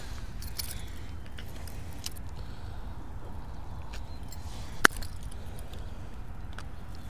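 Small metallic clicks and clinks as a chatterbait's blade and hook are worked by hand out of a bass's mouth, with one sharp, louder click about five seconds in, over a steady low rumble.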